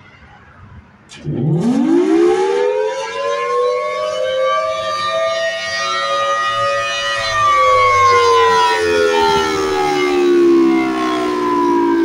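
Federal Signal Thunderbolt 1000T outdoor warning siren, its horn rotating, starting about a second in with a quick rise in pitch to a steady tone. Past the middle the pitch begins a slow, gradual fall.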